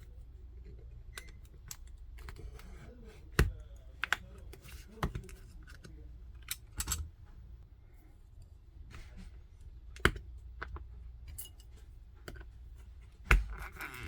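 Irregular sharp clicks and taps from prying open the small plastic case of a Xiaomi Mi TV Stick with hand tools, with louder snaps about three and a half seconds in, about ten seconds in and near the end, over a faint low hum.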